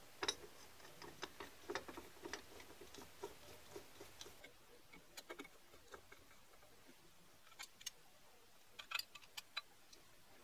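Light metallic clicks and taps of aluminium parts and small screws being handled and driven with a hex key, as a flat aluminium plate is screwed onto an aluminium angle bracket. The clicks come irregularly, loudest just after the start, with a quick cluster near the end.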